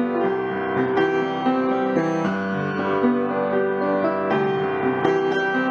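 Piano music, with held notes and chords that change every second or so.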